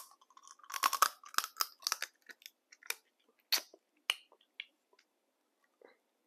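Eating crab close to the microphone: sharp crunching and cracking of the shell with chewing, a dense cluster of crunches about a second in, then single scattered cracks.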